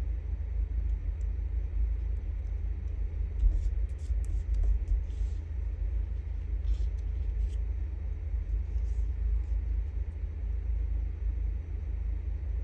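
A steady low rumble, with a few faint rustles and small taps of paper scraps being handled and pressed together on a desk.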